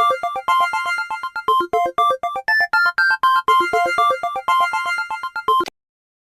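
LG KS10 mobile phone ringtone: a fast, bright synthesized keyboard melody of quick repeated notes that cuts off suddenly near the end.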